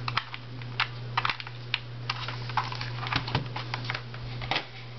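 Irregular plastic clicks and taps from a small netbook being handled while a USB mouse plug is pushed into its side port, over a steady low hum.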